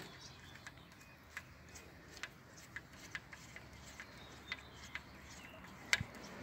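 Faint, irregular light clicks and ticks, roughly two a second, from hands working a small screw fitting on the stem of a Ninebot Max G30D e-scooter. A slightly sharper click comes near the end.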